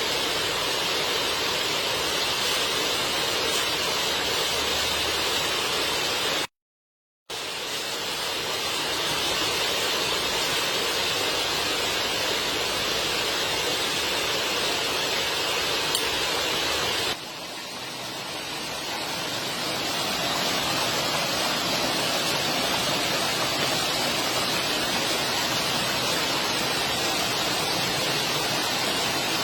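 Steady rushing of water, like a stream or heavy rain. It cuts out completely for under a second about seven seconds in, then changes abruptly about halfway through and swells back up over a few seconds.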